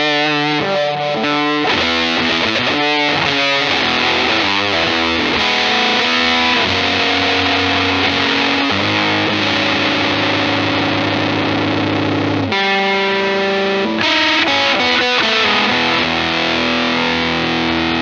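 Electric guitar played through a Death By Audio Apocalypse fuzz pedal on its War Fuzz setting, heavily fuzzed and distorted. Quick picked notes for the first several seconds, then a chord held for about six seconds, then more picked notes and held chords.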